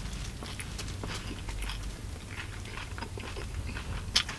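A person biting into and chewing a paper-wrapped steak and cheese sub: many small wet clicks and crunches of chewing, with a sharper click a little after four seconds in, over a low steady hum.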